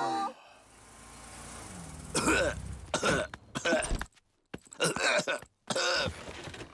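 A man's voice doing a cartoon cough, a run of about five short, harsh coughs from about two seconds in: the coughing of a character who has caught a cold.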